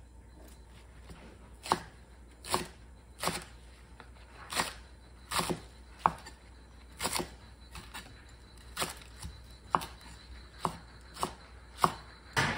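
Kitchen knife chopping vegetables on a wooden cutting board, first a large green onion and then green chili peppers. Separate, unhurried knocks come about one or two a second, starting about a second in.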